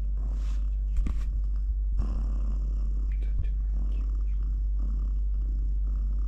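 Domestic tabby cat, a mother cat that has just given birth, purring steadily while being stroked, with a few soft rustles from the bedding.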